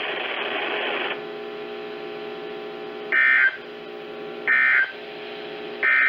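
Weather radio speaker playing a stretch of static, then a steady hum, then three short warbling data bursts about a second and a half apart. These are the SAME digital bursts of an Emergency Alert System broadcast, short enough to be the end-of-message codes that close the Required Weekly Test.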